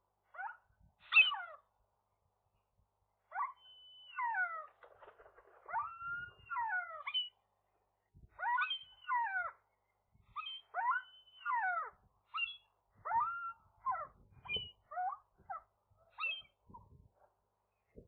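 Gull calling repeatedly: a long series of short mewing calls, most of them sliding down in pitch, coming in twos and threes after a short pause early on and growing shorter near the end.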